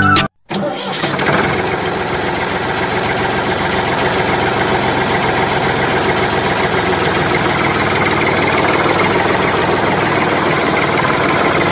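Tractor engine idling steadily, starting about half a second in after a brief silence.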